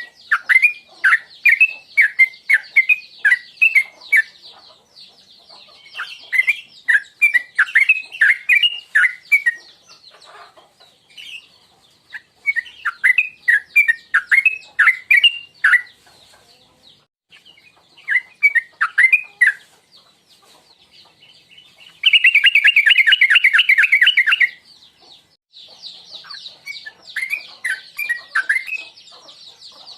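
Trucukan (yellow-vented bulbul) singing: phrases of quick bubbling chirps repeated every few seconds, with a louder, rapid chattering trill lasting about two seconds past the middle. A steady high hiss sits behind the song near the start and again near the end.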